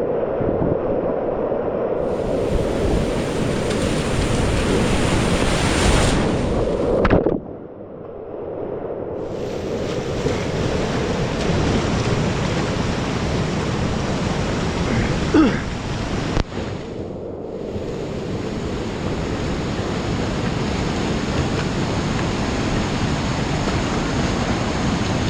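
Whitewater of a river rapid rushing steadily. The sound drops sharply about seven seconds in and returns some two seconds later.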